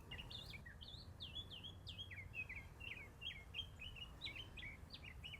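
Faint songbird chirping: a fast, continuous run of short, high chirps and twitters.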